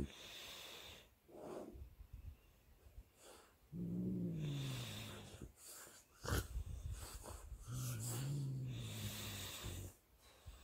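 French bulldog breathing in wheezy snorts, with two long, low grumbling growls, one about four seconds in and another later.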